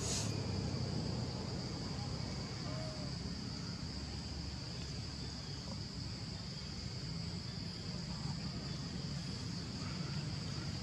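Insects droning steadily at a single high pitch, over a low steady background rumble, with a brief crackle right at the start.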